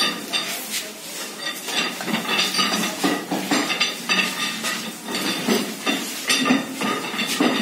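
Steel rods clinking and clanking against the heads of screw jacks as workers turn them to raise a house: an irregular run of ringing metallic clinks.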